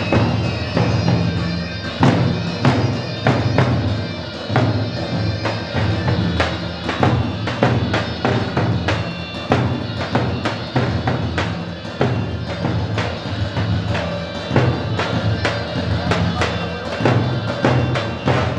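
Dance music with a steady drum beat: frequent sharp percussion strikes over a held low bass line.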